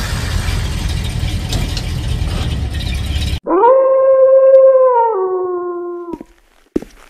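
A loud, even rushing noise cuts off abruptly about three and a half seconds in. At once a single long wolf howl follows, holding its pitch and then stepping down before it fades out.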